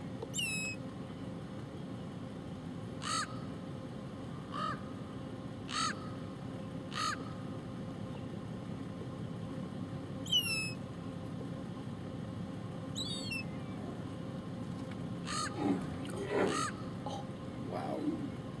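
Birds calling: about ten short, harsh caw-like calls spaced out over the stretch, a few of them high, falling squeals, over a steady low background rumble.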